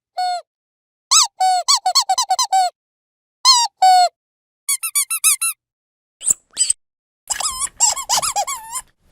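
Rubber dog squeaky toy being squeezed, giving single squeaks and quick runs of several squeaks in a row with short silent pauses between.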